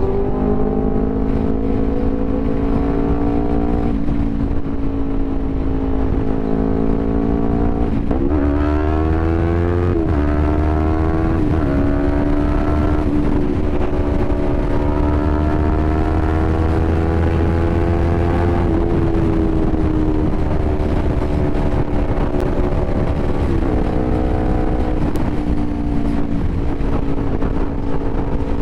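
Yamaha YZF-R3's parallel-twin engine running through an Akrapovic full exhaust while accelerating at highway speed. The pitch climbs, drops sharply twice about eight and ten seconds in as it shifts up, climbs steadily again, then eases off in the second half, over a low wind rumble.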